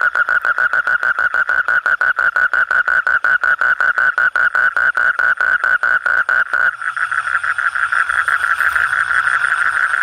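Asian common toad (bangkong) calling: a male's long, steady trill of rapid pulses at one pitch, carrying on without a pause, the advertisement call made to attract a mate.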